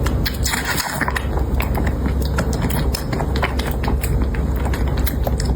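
Cat purring loudly right against the microphone, a steady low rumble with many small irregular clicks over it.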